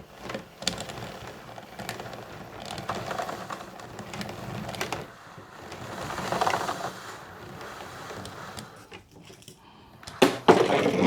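Uhlmann fencing scoring reel's drum turning under its new spring, a continuous busy clicking rattle as the wire winds back onto the reel while the spring tension is tested. It swells around the middle, and a louder knock comes near the end.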